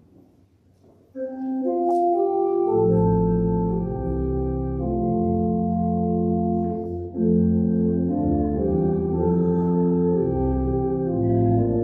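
Church organ starting about a second in with held chords, deep bass notes joining a moment later, then playing on through slowly changing chords.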